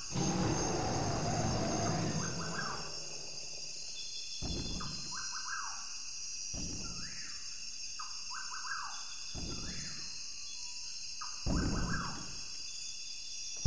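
Rainforest ambience: birds chirping repeatedly over a steady high insect drone. A long low rumble comes at the start, then heavy low thuds land about every two seconds.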